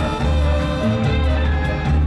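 Live show music with a strong bass line and instruments, played loud over the PA.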